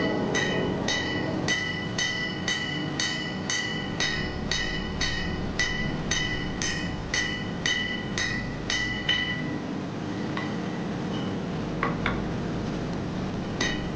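Hand hammer striking a red-hot steel billet on an anvil at about two blows a second, each blow ringing. The hammering stops about nine seconds in, followed by a couple of lone strikes near the end.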